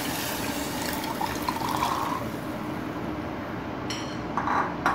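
Cooked chickpeas and their cooking water being poured from a bowl into a steel pan of hot masala: a rush and splash of liquid that fades over the first couple of seconds. A few sharp clinks of a spoon against the pan near the end.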